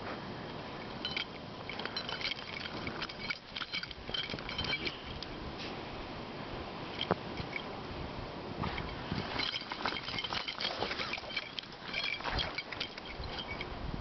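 Footsteps crunching through deep snow: irregular clusters of short crunches, busier in the first few seconds and again in the second half, with a quieter stretch in the middle.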